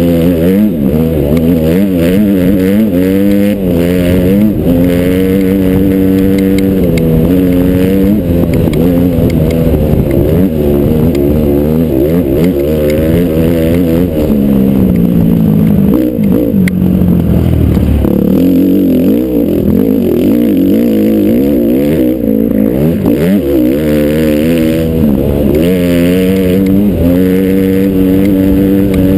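Honda CRF450R dirt bike's single-cylinder four-stroke engine under way, its pitch repeatedly rising and falling with the throttle and gear changes. It eases off about halfway through, then builds back up.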